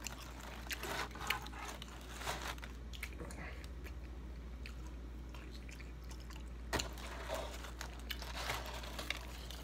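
Close-up chewing and biting of crunchy breaded fried fish: clusters of crisp crunches in the first couple of seconds and again near the end, with a quieter stretch of chewing between. A steady low hum runs underneath.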